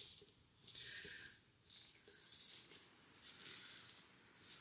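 Faint rustling and soft scraping from hands handling and turning over a hardcover book, in a few short swells.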